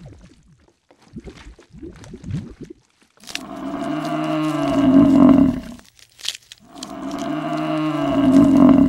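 A cow mooing: two long calls of about two and a half seconds each, a short pause apart, each swelling louder toward its end. Faint short rustles come before the first call.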